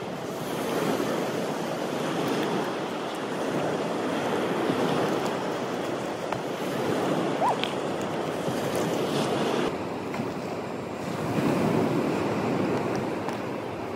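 Ocean surf washing onto the beach, swelling and easing in several surges, with wind on the microphone.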